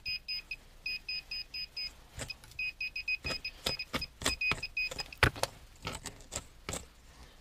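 Handheld metal-detector pinpointer beeping in rapid bursts of short high tones, the signal that it is over buried metal in sandy soil. The beeping stops about five seconds in, while short scraping clicks go on.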